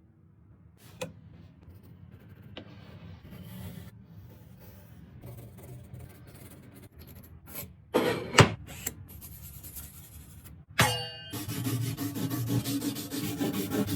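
Woodworking on wood by hand: quiet scraping and rubbing with a few clicks, a sharp knock about eight seconds in, then fast, steady rasping strokes over the last few seconds.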